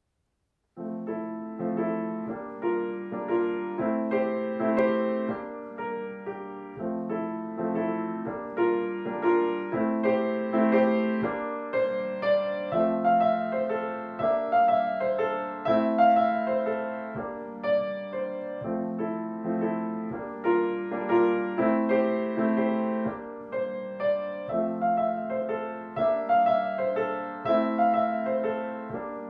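Grand piano played solo: a jazzy waltz with left-hand chords under a right-hand melody, in a steady lilting rhythm. The playing starts about a second in.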